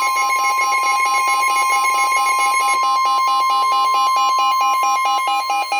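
Emergency alert attention signal: a loud, steady electronic tone just above 1 kHz, held over a fast-pulsing pattern of alarm tones.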